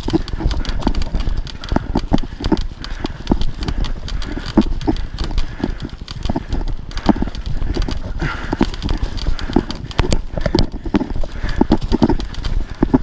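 Kona Process 153 full-suspension mountain bike rattling down a leaf-covered dirt trail: irregular knocks and clicks from the bike as it goes over the bumps, over a steady low rumble of tyres and wind noise.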